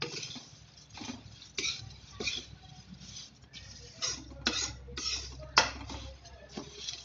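Metal spatula scraping and clinking against a metal kadhai as a dry namkeen mix of fried poha and nuts is stirred, in irregular strokes with the sharpest clink about five and a half seconds in.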